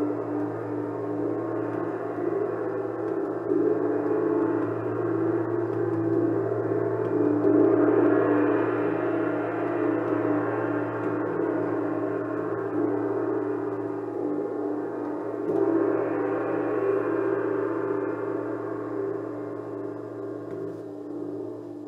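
Gong played continuously, a sustained ringing wash that swells louder twice, about a third of the way in and again past the middle, over a steady low hum.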